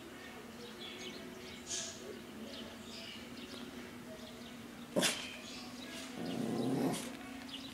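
Yorkshire terrier barking once, sharply, about five seconds in, then giving a longer, lower growl-like sound about a second later.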